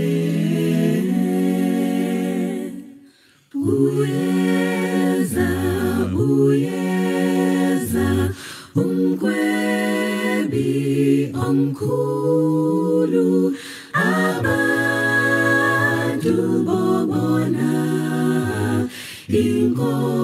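An unaccompanied choir sings a hymn in harmony, several voices moving together from chord to chord. There is a short break about three seconds in before the next phrase.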